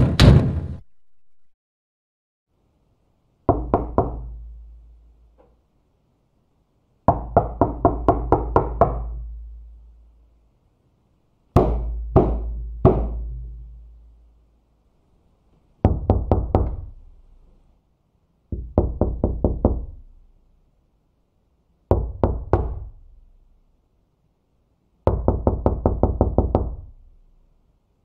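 Knocking on a door with knuckles, in about seven separate bursts with pauses between. Most bursts are several quick raps, and one is three slow, heavy knocks.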